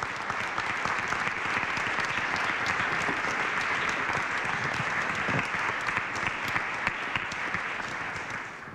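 Audience applause: many people clapping in a dense, steady patter, dying away near the end.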